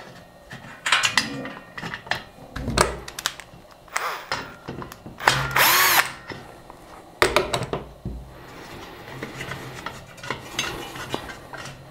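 A cordless drill-driver runs briefly about five seconds in, its motor whine wavering in pitch as it drives a screw into the aluminium extrusion frame. Around it are sharp clicks and knocks of metal parts and screws being handled.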